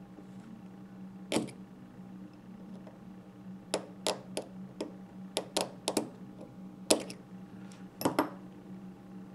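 A dozen or so sharp metallic clicks and taps, irregular and in small clusters, as small screwdrivers knock against the metal posts and deck of a Kennedy RDA while stainless steel coils are positioned. A steady low hum runs underneath.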